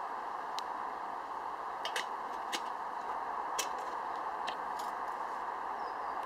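Small wood fire crackling in a folding metal stick stove: scattered sharp pops over a steady hiss, with a stainless steel pot set down on top of the stove.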